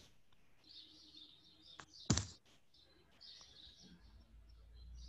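Faint birds chirping in the background, in short repeated calls. A single sharp click or knock about two seconds in.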